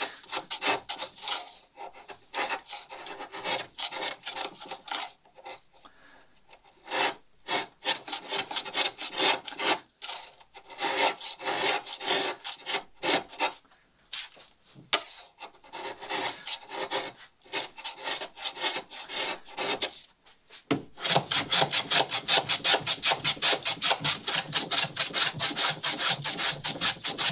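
Flat hand file rasping across the end of a plywood garboard plank to shape a scarf bevel, in uneven strokes with short pauses. About 21 seconds in, the strokes become quick and even as a block plane shaves the scarf.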